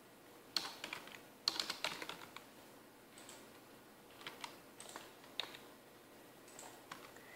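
Faint computer keyboard keystrokes: scattered single key presses and a few short runs of typing.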